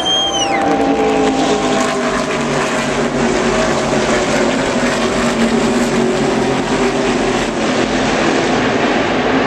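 A pack of NASCAR Cup stock cars with V8 engines running at speed past the grandstand, many engines layered into one loud, steady sound. A short whistle rises and falls at the very start.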